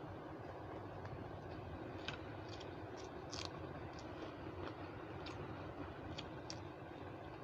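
Eating rice and curry by hand: small, irregular clicks from chewing, lips and fingers against a steel plate, scattered over a steady low hum.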